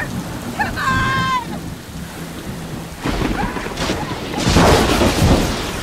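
Thunderstorm sound effect: steady rain with rumbling thunder that swells about three seconds in and is loudest near the end. A brief high voice sounds about a second in.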